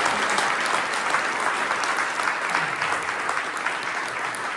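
Audience applauding, a roomful of clapping that slowly dies away.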